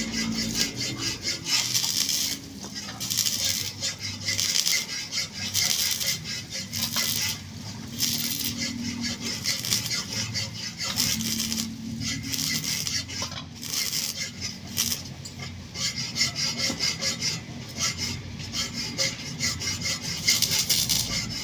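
Rough scraping strokes repeated back and forth, about one a second, from a hand tool worked against a hard or gritty surface.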